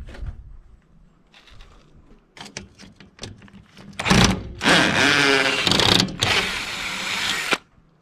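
Power drill backing a screw out of a metal frame, running in three bursts of a few seconds in all, its pitch wavering as the screw turns, after a few light clicks of the bit being set on the screw.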